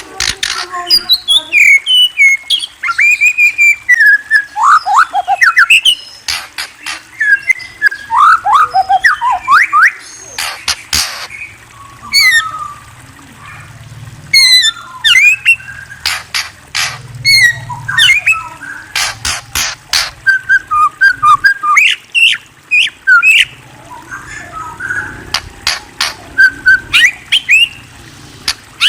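A murai songbird singing close up: a rapid, varied run of loud whistled notes and rising and falling slides, mixed with sharp clicking notes, broken by a few short pauses.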